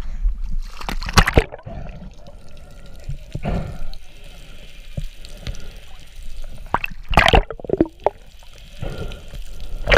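Seawater splashing and sloshing as a spearfisher dives from the surface, then muffled underwater water noise. Loud splashes come about a second in and again near seven seconds.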